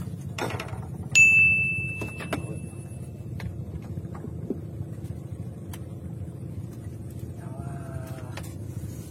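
A steady low engine hum, with a sharp metallic clink about a second in that rings on a clear high note and fades over about two seconds.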